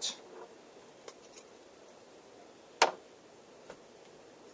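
Metal tools and bike parts handled at a workbench: a few faint clicks and one sharp metallic click about three seconds in.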